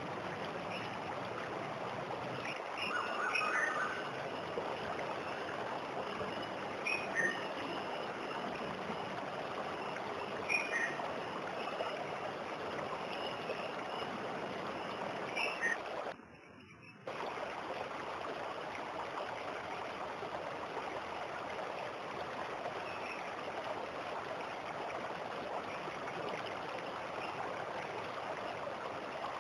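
Steady rush of falling water from a small waterfall, with short bird chirps every few seconds over it. The sound cuts out for about a second past the middle, then resumes.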